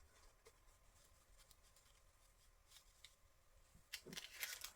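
Mostly near silence with a few faint ticks of paper being handled, then about four seconds in a short spell of paper and card rustling and scraping.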